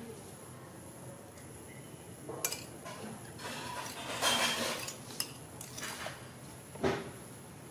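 Metal spoon clinking and scraping against a bowl as food is scooped: a few separate sharp clinks, with a longer, louder scrape about halfway through.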